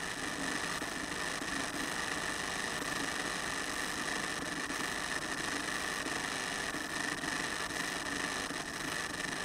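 Steady hiss with a high whine that never changes, picked up by the onboard camera of an FX-61 Phantom that is lying still in grass with its motor stopped.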